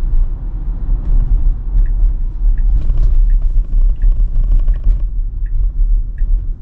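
Steady low road and tyre rumble inside the cabin of a moving Tesla Model Y, an electric car with no engine note. From about two seconds in, the turn signal ticks evenly, about once every 0.7 seconds.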